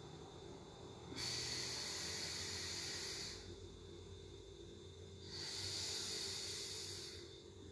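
A man breathing audibly through one nostril in alternate-nostril breathing (anulom vilom pranayama): two slow, airy breaths of about two seconds each, the first starting a little over a second in and the second about five seconds in.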